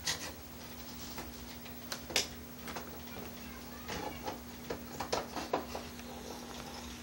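Scattered light clicks and knocks as wood and kindling are handled and shifted at a rocket heater's feed opening, over a faint steady hum.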